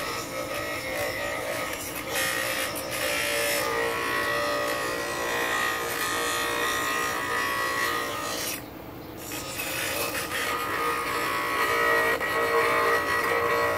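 Bench grinder running while a piece of oak is pressed against the wheel: a continuous rough grinding rasp over the motor's steady whine. The grinding lets up for about a second roughly two-thirds through, then carries on.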